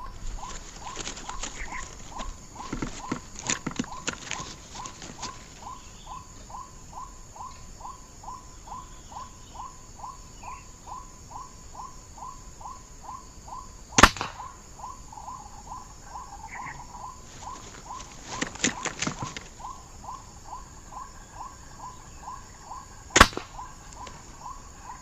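White-breasted waterhen call, played on a loop from an MP3 bird caller, repeating about twice a second. Two sharp air-rifle shots ring out, about 14 seconds in and again about 23 seconds in. Between them come two spells of scratchy noise, a few seconds in and around 18 seconds in.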